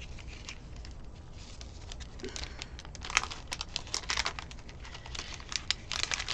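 Thin clear plastic packet crinkling and crackling as a stack of paper die cuts is handled and slid back into it. The first half is quiet, then scattered crackles become busier from about halfway through.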